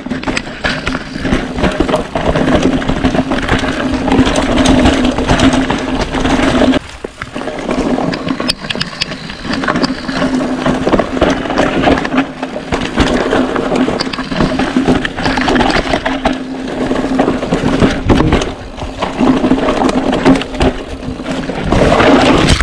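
Mountain bike with a CYC Photon mid-drive e-bike motor descending a rough dirt trail: the motor's steady whine runs under pedalling and drops out briefly a few times, over the rattle and clatter of tyres, chain and frame on the dirt.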